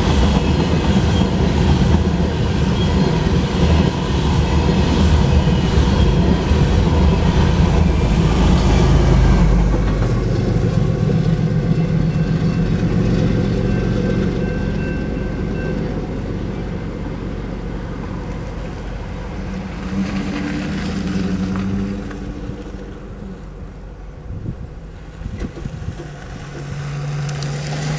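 The empty tank cars of a freight oil train rolling past on the rails, loud at first, then fading away from about ten seconds in as the end of the train goes by.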